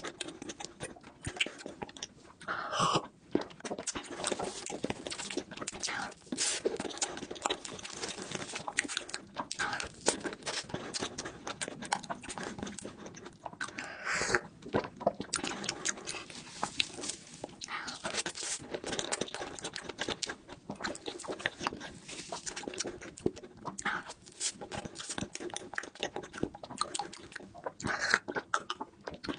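Close-miked eating sounds: biting and chewing cake and chocolate, a dense, continuous run of small wet mouth clicks and crunches. A few longer mouth sounds stand out, about three seconds in, in the middle, and near the end.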